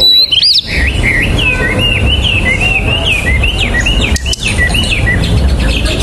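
Hainan blue flycatcher singing: a continuous run of quick, varied whistled notes that glide up and down.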